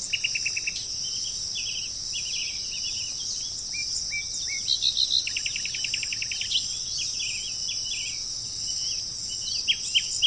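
Several songbirds calling and singing over a steady high-pitched insect chorus. A rapid trill comes near the start and a longer one about halfway through, with short chirps and whistled notes between.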